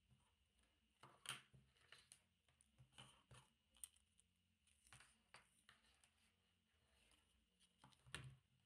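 Faint clicks and taps of 3D-printed plastic parts being handled and fitted together, the sharpest about a second in and near the end.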